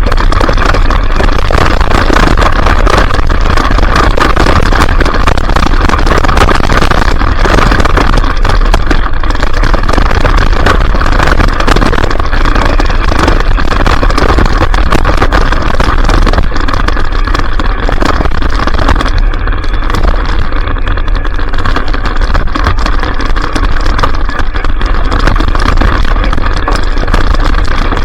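Traxxas Stampede RC truck's electric motor and gear drivetrain running hard, heard loud and close from a camera mounted in the truck bed, with a steady whine and continual small knocks and rattles as it drives over rough ground.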